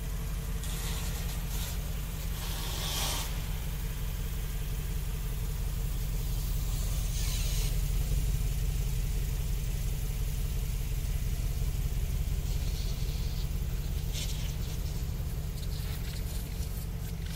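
Mercedes-AMG G63's twin-turbo V8 idling steadily through its side-exit exhausts, a low, even rumble that swells slightly midway. A few short hisses sound over it.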